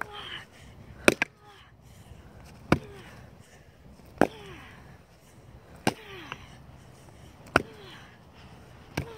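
Baseball bat smashing a pumpkin: six hard strikes about a second and a half apart, each a sharp thwack followed by a short falling tone, as the pumpkin splits and breaks into pieces.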